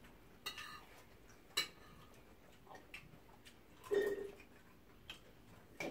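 Cutlery clicking and clinking against plates and glass serving dishes as people eat: scattered sharp taps about a second apart, with one louder sound about four seconds in.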